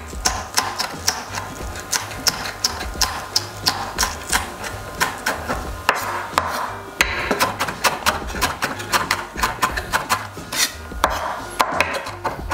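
Knife chopping shallot on a chopping board: quick, even strokes at about four a second, over quiet background music.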